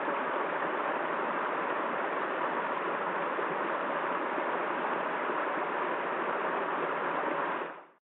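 Small rocky stream running over a low cascade: a steady rush of water that fades out near the end.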